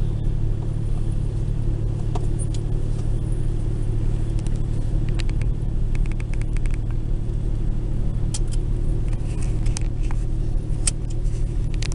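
Steady engine and tyre rumble of a Citroën C1 heard from inside the cabin while cruising at an even speed. A few light clicks and ticks come through in the second half.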